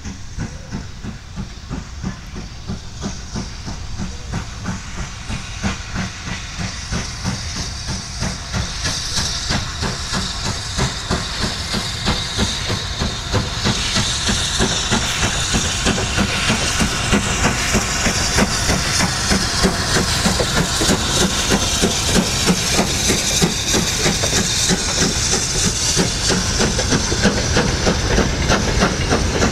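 Steam exhaust beats and hiss from BR Standard Class 7 'Britannia' 4-6-2 No. 70013 'Oliver Cromwell', a two-cylinder locomotive, as it pulls away. The beats come in a steady rhythm and grow louder as it approaches, then passes close by near the end.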